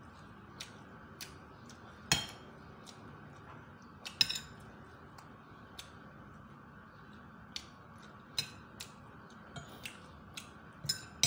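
Metal fork and spoon clinking and scraping against a ceramic plate while eating: a scatter of short sharp clinks, the loudest about two and four seconds in, over a faint steady hum.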